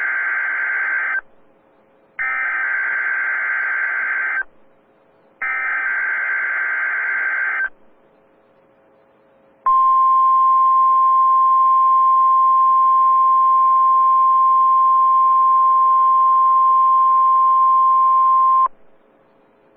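NOAA Weather Radio Emergency Alert System test: three harsh buzzing bursts of SAME digital header data, each about two seconds long and a second apart, then the 1050 Hz warning alarm tone, one steady high beep held about nine seconds that cuts off sharply. Together they mark the start of the required weekly test.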